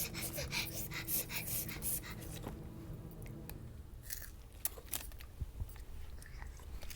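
Crunchy chewing and biting: irregular crisp crackles and clicks, busiest in the first couple of seconds, then sparser.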